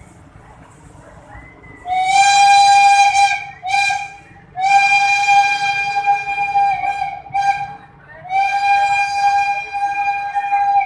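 Train horn sounding a string of loud blasts at one steady pitch, the first about two seconds in, with short gaps between them and the longer blasts held for two seconds or more.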